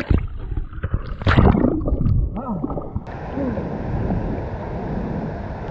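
Splashing and gurgling water heard with the camera at and under the surface of a waterfall's plunge pool, muffled and dull. About three seconds in it gives way suddenly to the steady rush of the La Fortuna waterfall.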